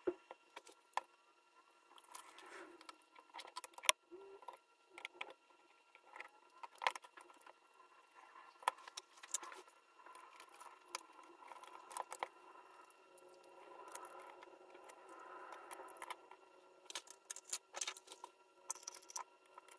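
Scattered light clicks and knocks of an opened bench power supply's sheet-metal case and plastic front panel being handled, with a screwdriver working inside it.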